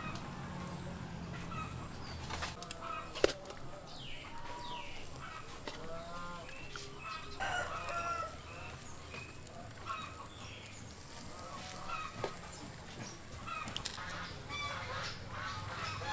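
Chickens calling in short, repeated calls throughout, with one sharp knock about three seconds in.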